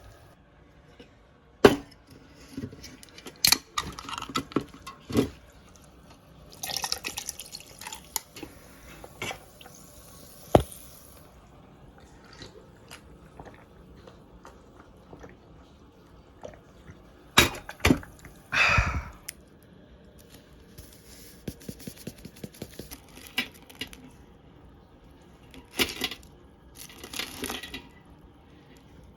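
Kitchen work sounds: scattered sharp clicks and taps of utensils and dishes, with a few short spells of hissing or splashing liquid.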